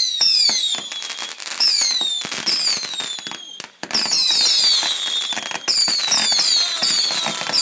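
Fireworks going off in a rapid series of whistling shots, each a high whistle falling in pitch, overlapping one another amid dense crackling and popping.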